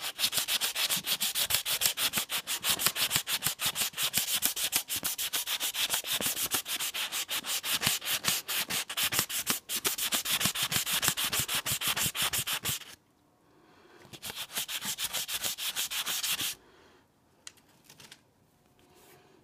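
Soapy-wet 800-grit wet/dry sandpaper rubbed rapidly back and forth under the fingertips on an aluminum model passenger-car body, a fast rasping at roughly four or five strokes a second. It breaks off about two-thirds of the way through, comes back for a few seconds, then stops near the end.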